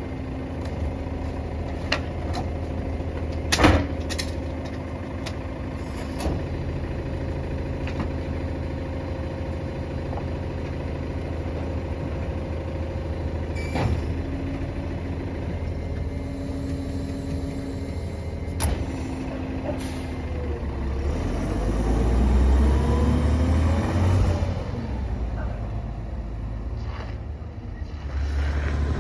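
A Mack LEU garbage truck's natural-gas engine idling with a steady hum while bulk trash is thrown into its side hopper, with sharp thumps and clunks, the loudest about four seconds in. After about 21 seconds the engine gets louder and its pitch rises and falls as the truck pulls away.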